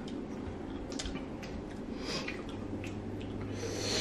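Quiet eating and utensil sounds: scattered light clicks of metal chopsticks against a small bowl, with soft wet squishing from sticky cheese rice cake and syrup.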